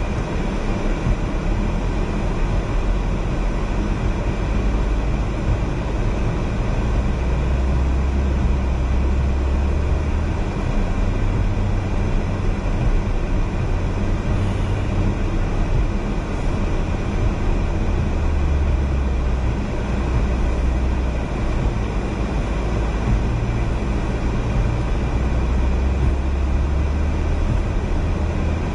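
Car cabin noise while driving on a snow-covered road: a steady low engine and tyre rumble with road noise, the engine note shifting up and down a little.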